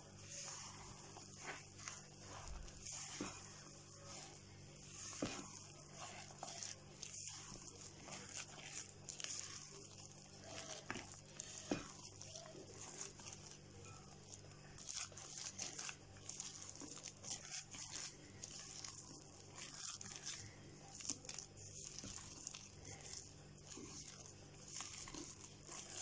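Silicone spatula stirring a thick, crumbly batter of egg, oil, shredded coconut, walnuts and breadcrumbs in a glass bowl: faint, irregular scraping strokes.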